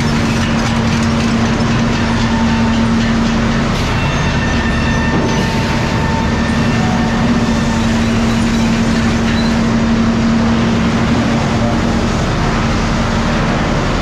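Sawmill log-handling machinery running steadily: log deck and conveyor clatter under a constant low hum.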